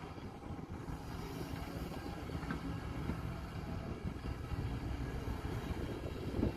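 Kobelco SK140 excavator's diesel engine running as it swings and dumps a bucket of earth into a dump truck, heard from a distance as a low, steady rumble.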